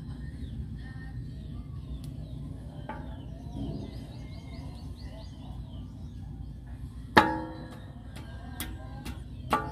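Metal tool work on a truck's drum-brake assembly: a sharp ringing metal clang about seven seconds in, a few light ticks, and a second clang near the end, over a steady low rumble.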